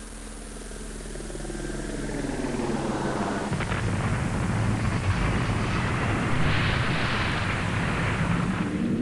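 Rumbling space-sound drone of the kind presented as the sound of a star or planet: a low hum that swells steadily louder into a rough rumble with a rushing hiss building over it, and cuts off suddenly at the end.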